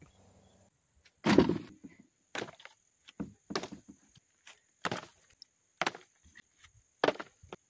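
Dry wooden branches knocking and clattering, a series of separate sharp clacks at irregular intervals, the loudest about a second in.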